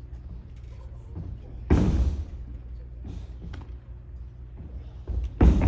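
Aikido breakfalls onto the competition mat: two heavy thuds about four seconds apart, the second just after a lighter one, each fading with a short echo.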